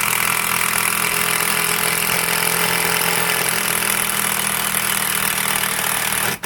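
Makita 14.4-volt cordless impact drill running flat out with the trigger held, a loud steady whir. Near the end it cuts out for an instant, runs again briefly, then stops.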